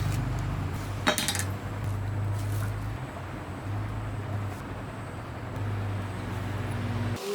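A steady low mechanical hum with a single sharp clink about a second in.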